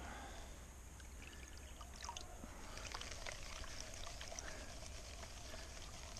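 Water pouring and trickling faintly as material is rinsed off a sluice mat, with small stones and gravel clicking.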